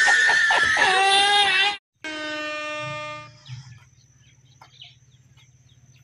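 A man laughing hysterically, loud and shrill, for about two seconds. It is followed by a steady held tone about a second long, then only faint background sound with small ticks.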